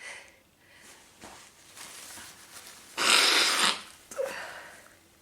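A woman's sneeze, a single loud breathy burst about three seconds in that lasts under a second, with fainter breaths before and after it.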